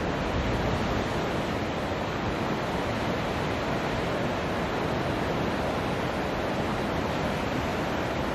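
Steady wash of ocean surf breaking on a sandy beach.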